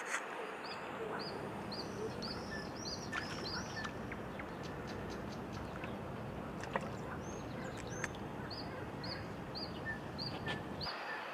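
A small bird singing runs of short, repeated arched chirps, about three a second, in two bursts of roughly a dozen notes, over a steady outdoor hiss. A few sharp clicks sound, the loudest right at the start.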